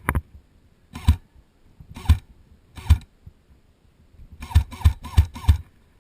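Airsoft gun shots: four single shots about a second apart, then four quicker shots in a row near the end.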